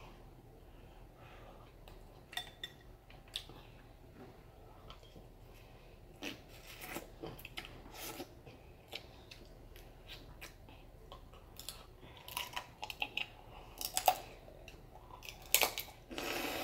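Close-up eating sounds of seafood gumbo: scattered soft clicks, crunches and chewing noises, coming more often in the last few seconds, with one sharper click about fourteen seconds in.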